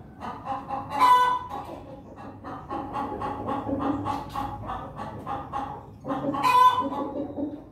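Chickens clucking, with a quick run of short clucks between two louder drawn calls, one about a second in and one near the end.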